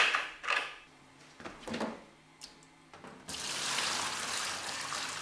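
Water poured from a plastic bucket into the steel water tray of a Langmuir Crossfire XL CNC plasma table, a steady splashing pour that starts about three seconds in. Before it, a few short knocks as the bucket is handled.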